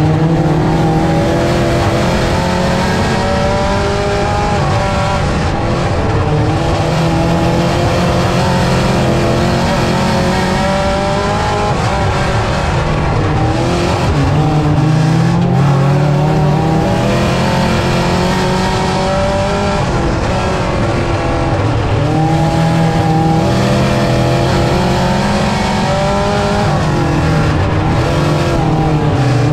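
Dirt-track mini stock race car engine running hard on an oval, revving up along the straights and backing off into the turns, the pitch rising and falling about every seven to eight seconds.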